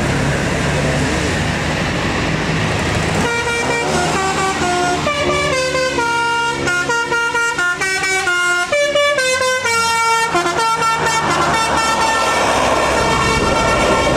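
A bus's telolet basuri musical horn playing a quick multi-note melody, starting about three seconds in and stopping a few seconds before the end, over the steady noise of a passing bus engine.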